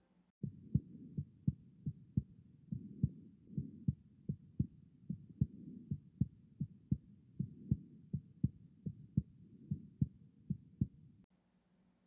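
Auscultated heartbeat with a third heart sound (S3): the lub-dub of S1 and S2 followed early in diastole by an extra soft, low beat, making a three-beat ventricular gallop. A sign of mitral regurgitation or heart failure, though normal in children and in pregnancy. It starts about half a second in and stops about a second before the end.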